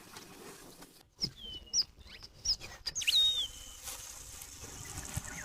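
Several short, high whistled bird calls, each dipping or falling in pitch, clustered in the first half, with a few sharp clicks between them.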